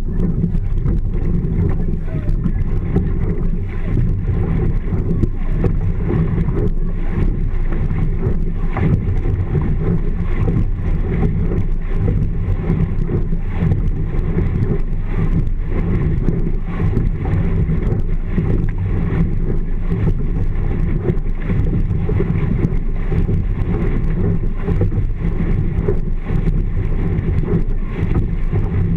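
Steady wind rumble on an action camera's microphone, with water rushing past a rowing shell under way.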